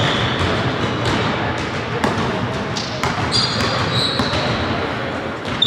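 Basketball game sounds in a large hall: a ball bouncing on the court with several sharp knocks, short high-pitched squeaks about halfway through, over a steady murmur of voices.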